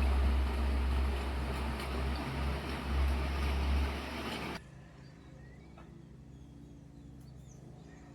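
Heavy rain in strong wind: a dense hiss with wind rumbling on the microphone, cutting off abruptly a little past halfway. After the cut, a much quieter outdoor background with a few faint bird chirps.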